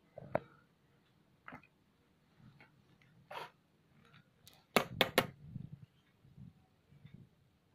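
Scattered light knocks and clicks of objects being handled on a table, with three sharp clicks in quick succession about five seconds in.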